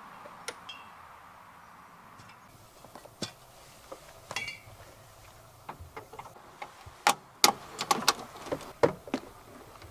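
Scattered clicks and metallic knocks of a portable gas bottle being put in place and its hose's brass fitting being connected, with a run of louder knocks in the last three seconds.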